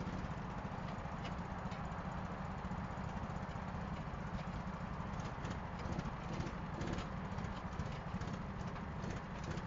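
Rental kart engines idling steadily while the karts sit stationary.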